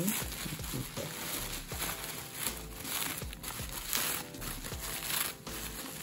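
Plastic bubble wrap crinkling and rustling in bursts as hands unwrap a CPU cooler from it.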